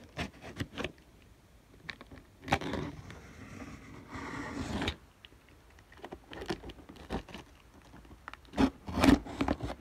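Blade cutting and tearing the packing tape on a cardboard shipping box: scraping and ripping of tape and cardboard with scattered taps and knocks as the box is handled. A longer scraping tear runs through the middle, and two louder knocks come near the end.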